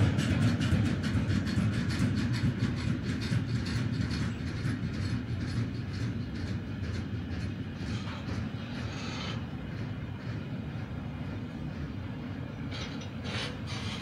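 Freight train rolling past, its wheels clicking rhythmically over the rail joints above a steady rumble, the sound slowly fading as the train moves away.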